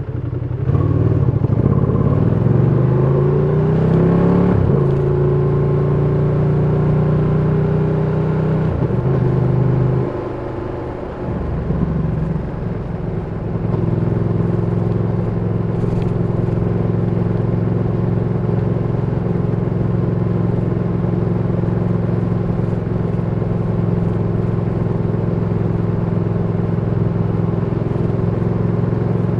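Ducati Panigale V2's twin-cylinder engine rising in pitch under acceleration for the first few seconds, with a gear change about five seconds in, then holding a steady pitch. It drops away around ten seconds in and then runs at one unchanging pitch for the rest.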